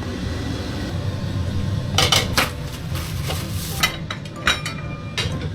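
Dishes and pans clinking and knocking as they are handled at the sink, with a handful of sharp clinks from about two seconds in over a steady low hum.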